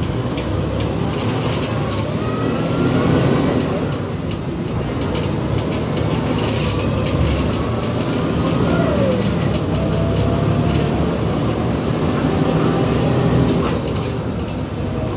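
Interior of a moving city bus: the diesel engine runs with a steady drone under road noise, with faint whines that rise and fall now and then and light rattles.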